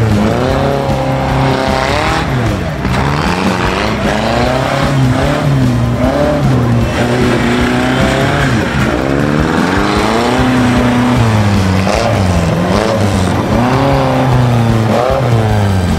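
Off-road 4x4 engine revving hard, its pitch rising and falling over and over as the throttle is worked on a steep dirt climb.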